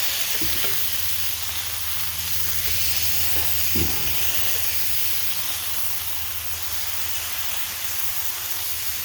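Smash-burger patties sizzling steadily on a hot Lodge cast iron griddle, over a steady low hum, with a light knock about half a second in and another near four seconds.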